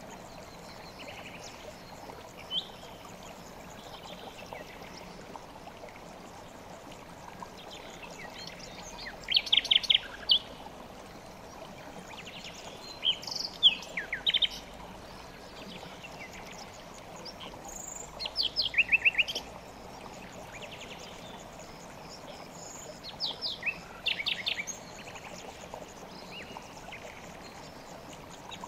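A songbird sings four short phrases of quick, trilled notes, each a few seconds apart. Under them a river rushes steadily.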